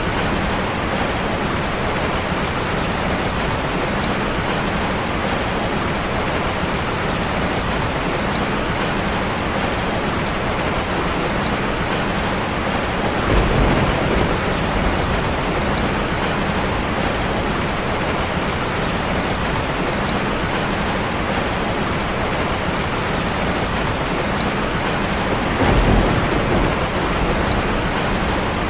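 Steady rain falling, with two low rumbles of thunder, one about halfway through and one near the end.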